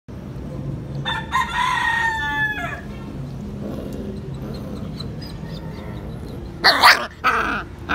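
A rooster crowing once in the background, one drawn-out call about a second in. Near the end, two short sharp yips from puppies play-fighting.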